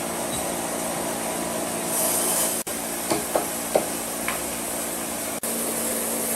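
Sawmill machinery running steadily, with a short hiss about two seconds in and a few sharp knocks soon after.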